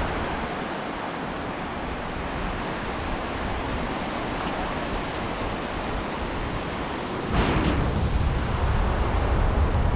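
Steady hiss of small waves washing on a beach, with wind rumbling on the microphone that gets stronger about seven seconds in.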